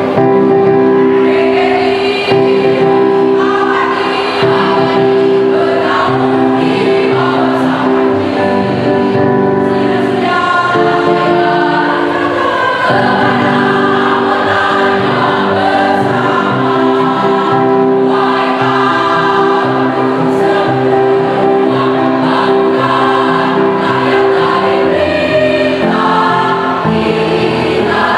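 Mixed choir of men's and women's voices singing in parts, with long held chords.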